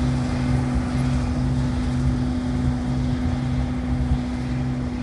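Heavy harvest machinery running steadily: a constant engine hum with a regular low throb under it.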